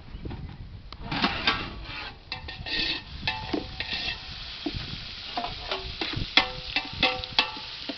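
Metal ladle stirring and scraping onions and tomatoes frying in oil in an aluminium pot, with repeated clinks and knocks against the pot, some of them ringing briefly, over a steady sizzle: the curry base being sautéed over high heat.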